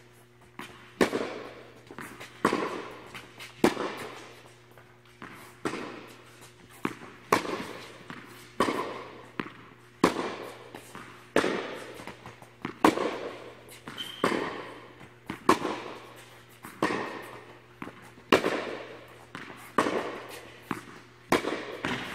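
Tennis balls struck with rackets in a steady rally: a sharp pop about every one and a half seconds, each ringing on in the echo of an indoor court hall, with lighter ball bounces between.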